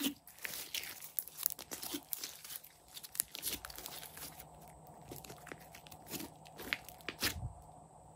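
Hands stretching, folding and pressing a large lump of glossy slime: a run of small sticky crackles and pops, busiest in the first half and thinning out later.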